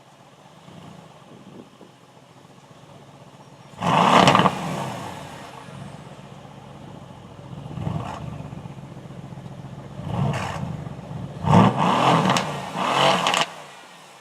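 Sports car engine being revved in short throttle blips. There is a loud blip about four seconds in, two smaller ones, then a run of three quick blips near the end, each rising and falling in pitch over a steady idle.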